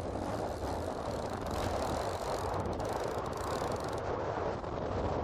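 Boat outboard motor running steadily while trolling, mixed with wind and choppy waves.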